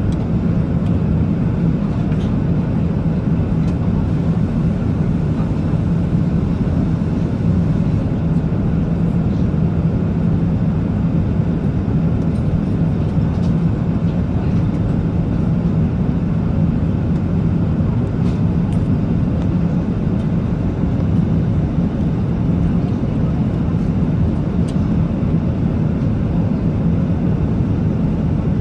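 Airbus A380 noise: a steady, even rumble with a constant low hum that neither rises nor falls.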